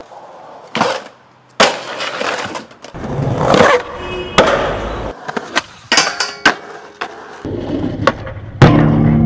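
Skateboard tricks in quick succession: sharp knocks of the board popping and landing, and wheels rolling on concrete. Near the end comes a grind on a metal rail, ringing steadily.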